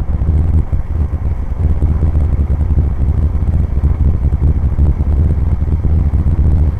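Cessna 172's engine and propeller running steadily, a loud, deep drone heard inside the cabin.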